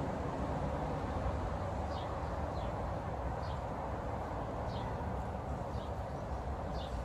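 Steady rumble of distant traffic, with a small bird giving about six short, high, falling chirps.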